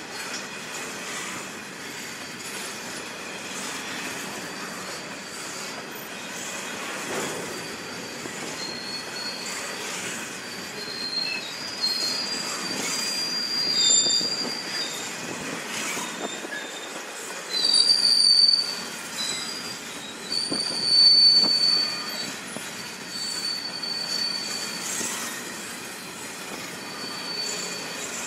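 Railway wagons rolling past with a steady rumble. From about a third of the way in, the wheels squeal in high, on-and-off tones that are loudest about two-thirds of the way through.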